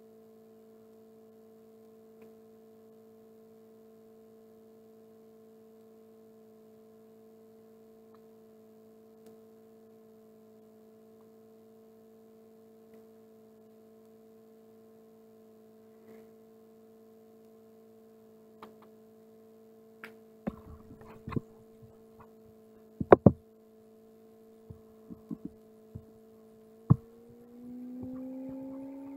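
A steady electrical hum with a few even overtones. From about two-thirds of the way in come a series of sharp knocks and clicks from the camera being handled and moved, the loudest a double knock. Near the end the hum slides up in pitch and grows louder.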